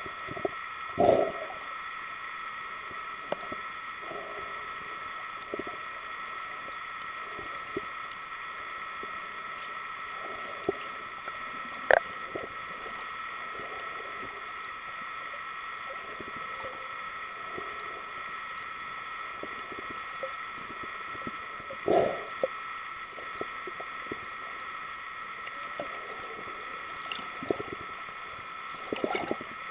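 Underwater sound: a steady hum of several held tones throughout, broken by a few short gurgling bursts, the loudest about a second in and about twenty-two seconds in, and one sharp click near the middle.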